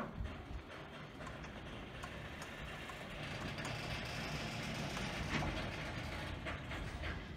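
Freight train's container flatcars rolling slowly past at close range as the train moves off after a stop. Steady wheel-on-rail rumble with scattered clanks and clicks, growing louder from about three seconds in as the train picks up a little speed.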